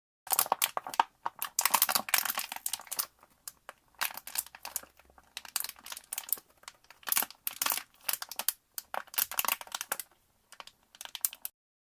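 Plastic PET bottle being crushed by hand: irregular bursts of crackling and crinkling as the plastic buckles, in several clusters with short pauses, stopping near the end.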